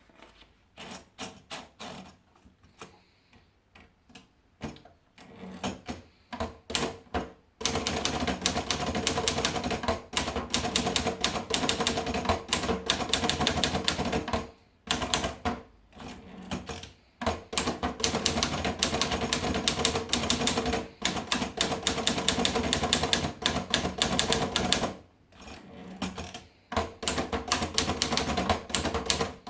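Olivetti Lettera 22 manual portable typewriter being typed on. A few separate keystrokes come at first, then fast continuous typing starts about eight seconds in, broken by a few short pauses.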